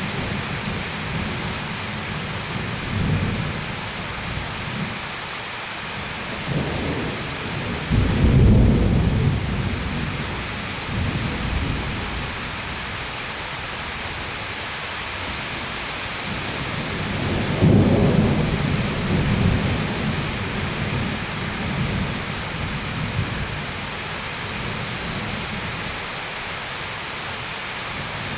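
Thunderstorm: steady heavy rain with rolling thunder. Two loud claps about 8 and 18 seconds in rumble off over several seconds, with fainter rumbles between.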